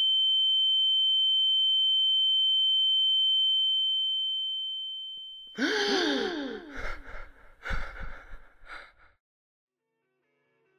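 A steady high-pitched electronic ringing tone holds for several seconds and fades away. It is cut off by a young man's sudden loud gasp for air, falling in pitch, followed by a few shorter ragged breaths that stop about three seconds later.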